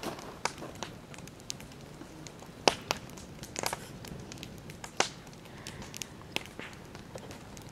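Wood campfire in a metal fire ring crackling, with scattered sharp pops over a low steady hiss; the loudest pops come about three and five seconds in.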